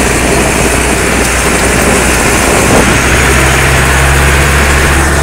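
Deutz tractor's diesel engine running steadily under way, heard from the driver's seat, with a low steady hum and a further low tone that comes in about three seconds in.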